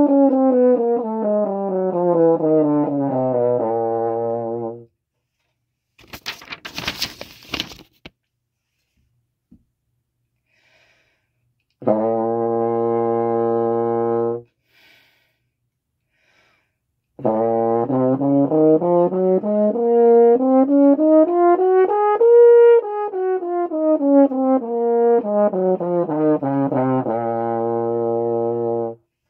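French horn playing scales: a quick descending run ending on a held low note, a lone sustained low note, then a scale climbing two octaves and coming back down to the same low note. A short breathy noise falls in the gap after the first run.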